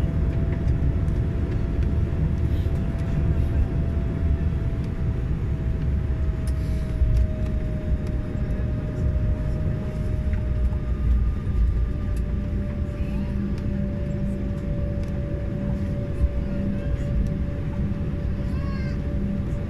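Embraer E190's GE CF34 turbofan engines heard from inside the cabin while taxiing at low thrust: a steady low rumble with a steady whine that drifts slightly lower in pitch.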